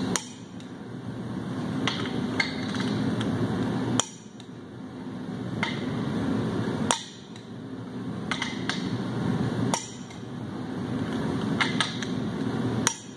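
Torque wrench ratcheting and clicking as the main bearing cap bolts of a 7.3 Powerstroke block are tightened to 96 foot-pounds: separate sharp metallic clicks, about one every second or two.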